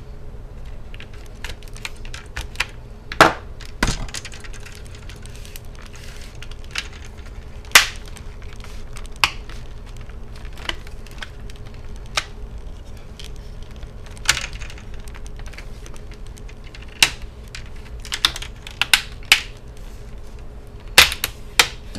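Plastic retaining clips of a laptop's screen bezel clicking and snapping loose as the bezel is pried off by hand: irregular sharp clicks, with a few louder snaps, over a faint steady hum.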